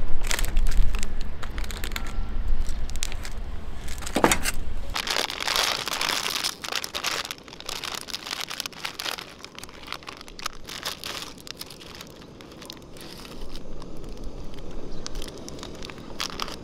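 Crinkling and rustling with scattered clicks and crackles. A low rumble runs under it and stops about five seconds in.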